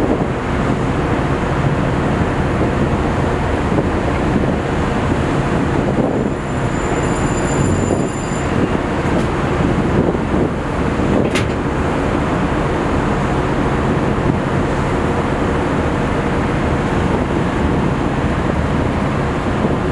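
Steady heavy machinery din from a self-unloading freighter while its conveyor boom swings: a dense rumble over a low hum. A high-pitched squeal lasts about two seconds, starting around six seconds in, and a single sharp click comes about eleven seconds in.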